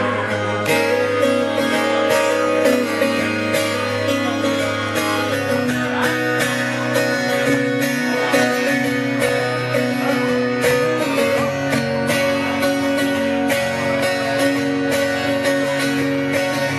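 Twelve-string acoustic guitar strummed steadily in an instrumental passage, chords ringing with an even strumming rhythm.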